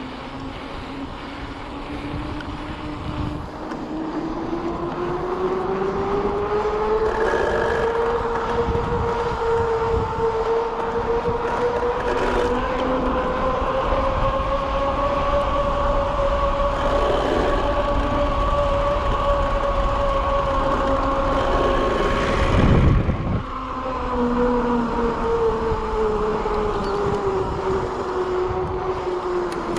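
Mountain bike's rear freehub buzzing while coasting downhill, its pitch rising slowly as speed builds, holding, then falling as the bike slows, over wind and tyre rumble on the trail. A sharp knock about 23 seconds in, like the bike hitting a bump or landing.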